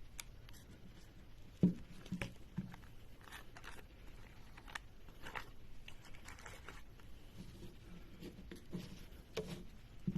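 Faint, scattered small taps and soft rubbing of hands working mixed two-part adhesive along the seam of a plastic water-pipe joint, with one sharper click a little under two seconds in.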